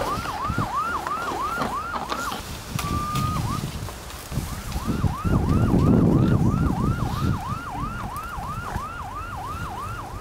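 Electronic siren sounding in a rapid yelp, about four quick rising-and-dropping sweeps a second, breaking off for about a second near the middle and then starting again. Wind rumbles on the microphone.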